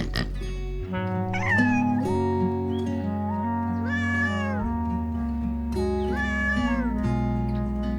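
A cat meowing three times, each meow under a second and rising then falling in pitch, over background music of sustained notes.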